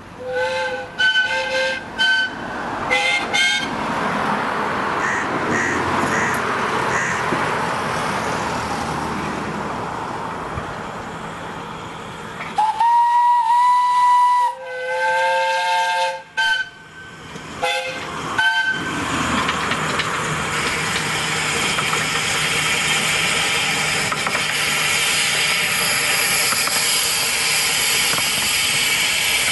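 Miniature steam locomotive whistle giving several short toots, then two longer blasts about halfway through, one on a single note and one on a several-note chord, and two more brief toots. From about two-thirds through, a loud steady hiss of escaping steam takes over.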